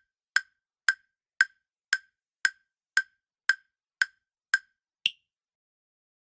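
Countdown timer sound effect: sharp, evenly spaced ticks about two a second, ending about five seconds in with a last, higher-pitched tick as the answering time runs out.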